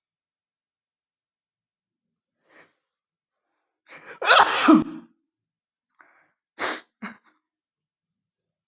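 A woman sneezing once, loudly, about four seconds in, with a short falling voiced cry in it. Two shorter, breathy bursts follow a couple of seconds later.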